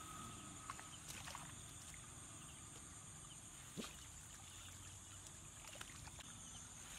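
Faint splashing and trickling of shallow water as a bamboo fish trap is lifted out and bare feet wade, with a few light knocks.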